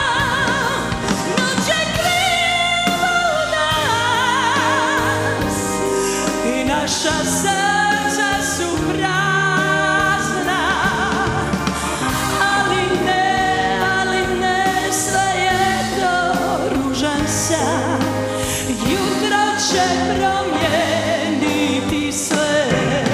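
Live band music with a woman singing lead over drum kit, keyboards and guitar; her held notes waver with vibrato and cymbals crash through.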